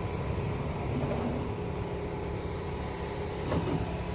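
A vehicle engine idling steadily with a low hum, with a few faint clicks near the end.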